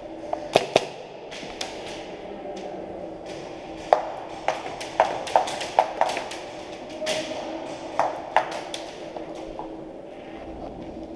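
Scattered sharp cracks and pings of airsoft gunfire and BBs striking hard surfaces, irregularly spaced and clustered in the middle, over a steady low hum.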